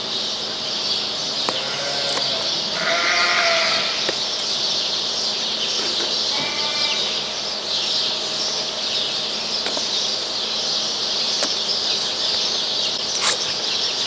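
Lambs bleating three times, over a steady high-pitched hiss, with light clicks and scrapes from a pocketknife cutting open a cardboard box.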